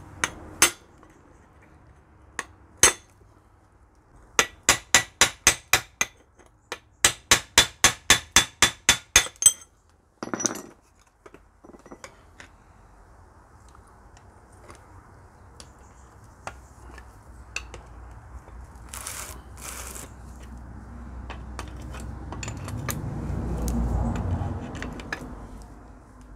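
Steel hammer striking a drift set in the kingpin eye of a Citroën 2CV front suspension arm: two single sharp blows, then two runs of quick metallic taps, about four a second. Near the end a low rumble swells and fades.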